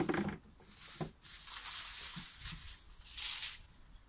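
Dry, papery garlic skins and stalks crackling and rustling in several short bursts as garlic bulbs are handled.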